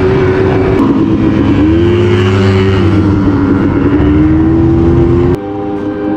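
Quad bike engine running under way over sand, its pitch rising and falling as the throttle is worked. About five seconds in the sound cuts off abruptly, replaced by a quieter steady sound.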